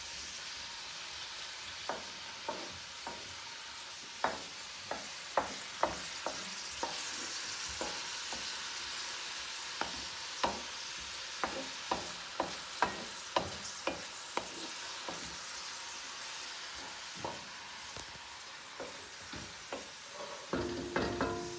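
Chopped onion and garlic sizzling in olive oil in a metal wok, with a steady hiss, while a wooden spoon stirs and knocks against the pan in irregular taps.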